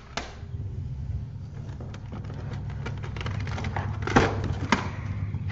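Plastic CD jewel cases clicking and clacking as they are handled and sorted, with a few sharper knocks, the loudest about four seconds in, over a steady low hum.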